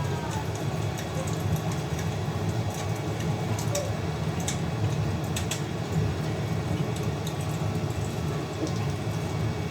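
Fire crackling: scattered sharp pops and snaps at irregular moments over a steady low rumble.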